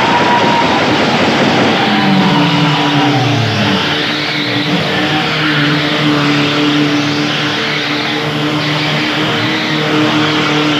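Tube-frame buggy's engine running hard as the buggy spins doughnuts. The engine note drops about two seconds in, then holds at a steady high pitch under a continuous noisy hiss.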